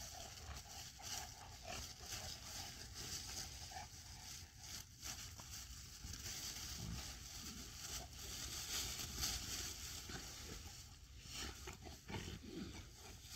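Dogs wrestling and romping in dry fallen leaves: a steady rustling and crunching of leaves under their paws and bodies, with a few louder scuffles about eight to nine seconds in.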